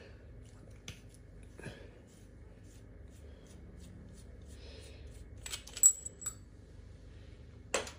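Metal parts of a PCP air-rifle valve being handled and twisted apart by hand: a few faint clicks, then a cluster of sharp metallic clinks about five and a half to six and a half seconds in, one with a short high ring, and another click near the end.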